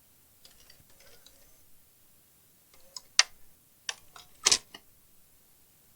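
A few sharp mechanical clicks and clunks from a VHS video recorder being operated, the loudest two about three and four and a half seconds in, after faint soft handling noises.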